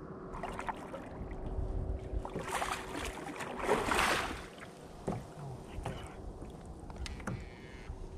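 Water splashing and churning beside a kayak as a large hooked bat ray thrashes at the surface, building to its loudest about four seconds in, with scattered small clicks and knocks.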